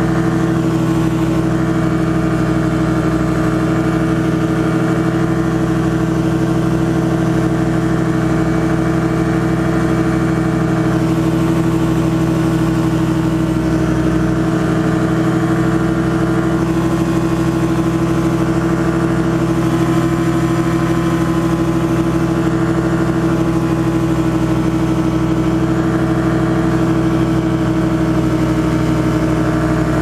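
Challenger ultralight's engine and propeller running steadily at cruise power in level flight, a constant pitched drone with no change in speed.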